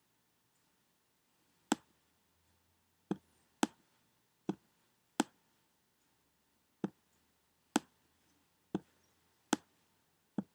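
Computer mouse clicking: about ten single sharp clicks at irregular intervals, with near silence between them.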